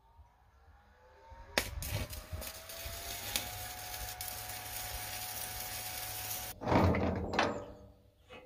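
Electric arc welding on steel: the arc strikes about a second and a half in and crackles and hisses steadily for about five seconds as a steel leg frame is welded to an old steel barrel. Near the end the arc stops and a louder burst of metal knocking and clattering follows.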